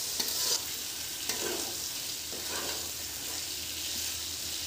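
Metal spatula stirring and scraping through masala and eel pieces frying in oil in a metal kadai. A steady sizzle runs throughout, with a few louder scrapes of the spatula against the pan.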